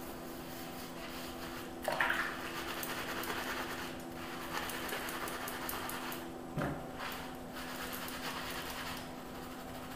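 Wet hands and a soap bar rubbing a beard and working it into a lather, with a brief splash about two seconds in and a soft thump a little after six seconds. A steady low hum runs underneath.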